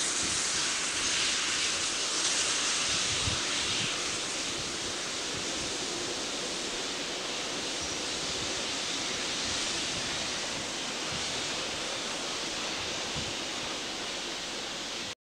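Steam-hauled passenger train passing: the locomotive's sound fades over the first few seconds, leaving a steady rushing noise as the carriages roll by. The sound cuts off suddenly at the end.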